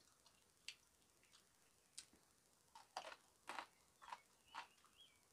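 Quiet eating sounds: a few sharp clicks of chopsticks against a bowl, then a run of louder smacks and clicks of chewing raw spring greens from about three seconds in.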